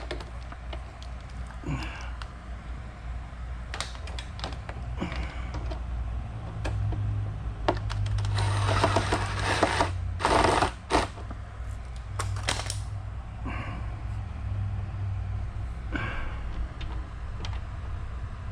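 Scattered clicks and rattles of small motorcycle parts being handled and pushed into place, with a denser stretch of handling noise about halfway through, over a steady low hum.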